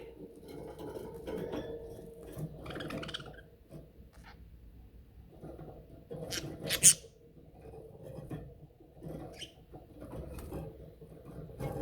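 Budgies scratching and shuffling about, with small pecking clicks and rustles, and one sharp, bright sound about seven seconds in. A faint steady hum sits underneath.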